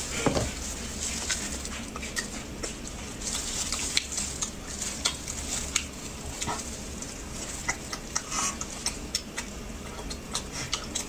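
Close-miked eating sounds of seafood being chewed and handled: irregular small clicks, taps and smacks, several a second.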